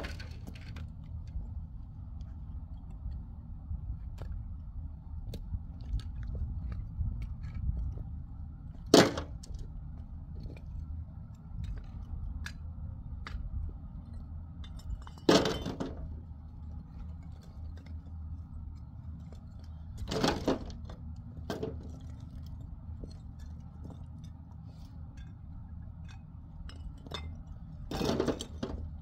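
Broken bricks and rubble being picked up and tossed into a metal wheelbarrow: small clinks and crunches, with four louder clattering impacts spread through, over a steady low rumble.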